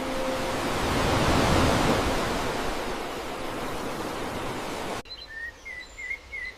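A loud, even rushing noise, like surf or a waterfall, swells and eases, then cuts off abruptly about five seconds in. A small bird then chirps in quick, repeated rising notes.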